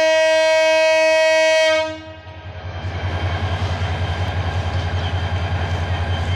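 Diesel locomotive horn blowing one long, steady, loud note that stops about two seconds in. Then the locomotive's diesel engine runs with a low, pulsing throb as the passenger train moves.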